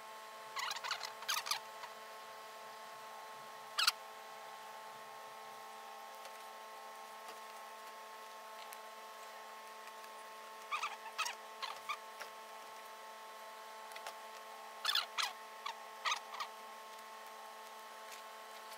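Scissors snipping through a mink coat's lining in a few short clusters of cuts, about a second in, once near four seconds, and twice later on. A faint steady hum runs underneath.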